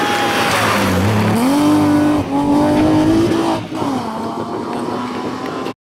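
BMW E30 rally car's engine at full throttle on a stage: the pitch falls into a gear change about a second in, climbs hard, breaks briefly, climbs again, then drops as the throttle comes off and settles at a lower pitch. The sound cuts off suddenly near the end.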